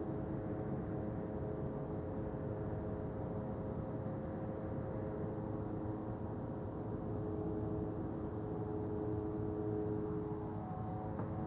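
Steady humming drone of several held tones over a low hiss, with no breaks. Its source is unexplained: it sounds like a plane but stays in one place.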